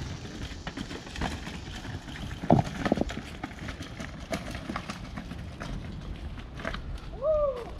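Mountain bike riding over a rock garden of loose stones: tyres and frame clunking and rattling on the rocks, with the loudest knocks about two and a half to three seconds in. A short pitched tone rises and falls near the end.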